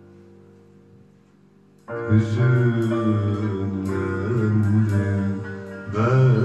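Turkish art-music backing track: a faint held chord fades out, then about two seconds in the instrumental introduction of the next song starts loudly and carries a melody on instruments.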